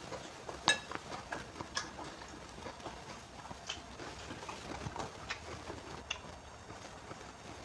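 Close-up eating sounds: irregular wet clicks and crunches of someone chewing instant noodles with raw, crisp bean sprouts, with one sharper click a little under a second in.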